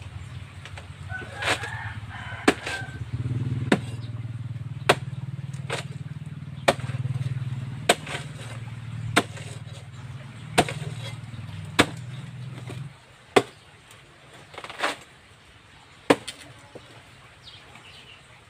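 A large knife chopping through a banana trunk, one crisp chop about every second. A low steady hum runs underneath and stops about two-thirds of the way through.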